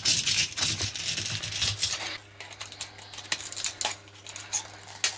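Glass inside a metal-cased valve being broken up with pliers: quick sharp clinks and crunches of glass against the metal can. The clinks are dense for about the first two seconds, then come as scattered clicks.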